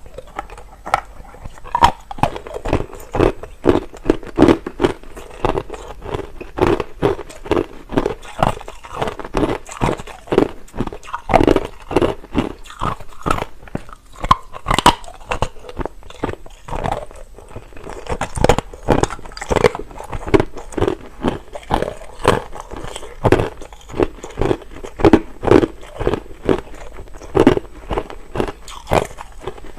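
A person biting and chewing hard crushed ice close to the microphone: a steady run of loud, sharp crunches, about one or two a second.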